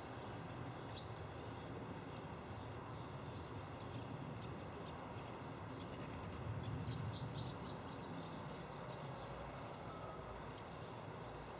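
Wild birds calling at a winter feeder: scattered short, high chirps, a quick cluster of them about two-thirds of the way in, and a single thin, high call near the end. A steady low background rumble runs underneath.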